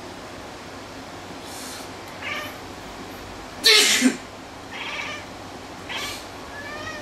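A person sneezes loudly once, about four seconds in. A domestic cat answers with several short, high meows, one just before the sneeze and a few after it, the last one rising. The cat habitually cries like this in response to its owner's sneezes.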